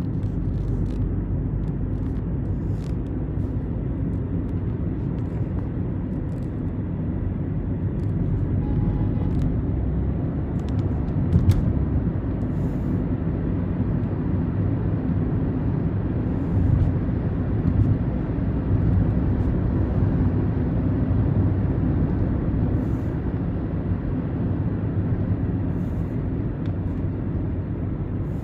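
Steady low rumble of a car driving, heard from inside the cabin: engine and tyre noise on the road, with a few faint clicks and one short knock about eleven seconds in.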